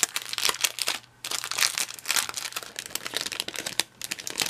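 Clear plastic sleeve crinkling as sheets of stickers are handled and slid out of it: irregular rustles with a short pause about a second in.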